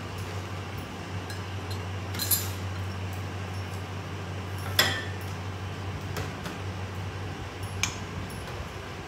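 Dishes and serving utensils clinking as food is plated: three separate clinks, the middle one, about five seconds in, the loudest and ringing briefly. A steady low hum runs underneath.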